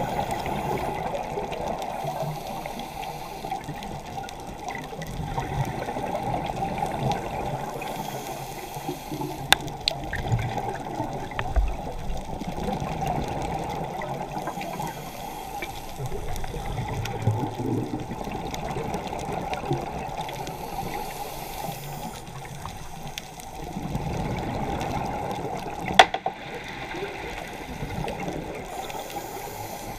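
Underwater, a scuba diver breathes through a regulator, heard through the camera housing. Muffled rushes of bubbling exhaust air swell and fade every several seconds, with a few sharp clicks.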